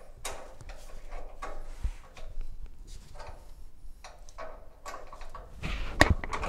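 Scattered light metal clicks and clinks of engine-mount bolts and tools being worked into place, with a sharp knock about six seconds in.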